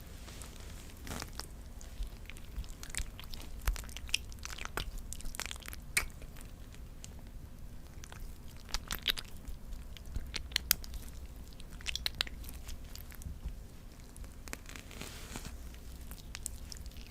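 A person chewing and biting: irregular, crisp crunches and clicks over a low steady hum.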